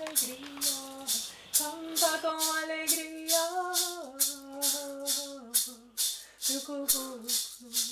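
A hand rattle shaken in a steady beat, about two and a half shakes a second, under a slow sung melody of long held notes that step up and down in pitch.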